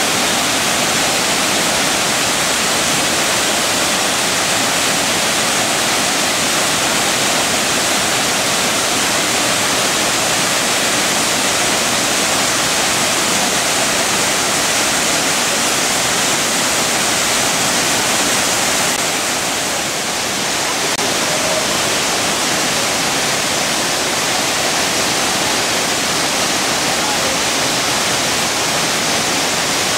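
Large waterfall: a loud, steady rush of falling water, easing slightly for a moment about twenty seconds in.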